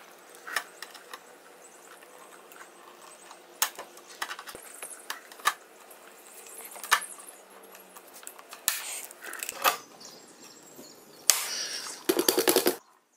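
Pop rivets being set with a hand riveter to fasten small metal plate-mount brackets to a motorcycle's undertail: scattered clicks and clinks of handling, with sharp snaps as the rivets are pulled tight, loudest about seven and eleven seconds in. A fast run of clicks comes just before the end.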